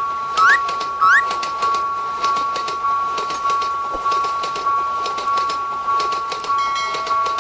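Railroad crossing signal bell ringing the Japanese "kan-kan" two-tone ding a little under twice a second. Two short rising whistle chirps sound in the first second, and light clicks run through it.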